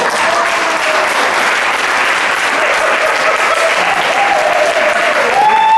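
Audience applauding, a dense stretch of clapping, with a voice carrying over it.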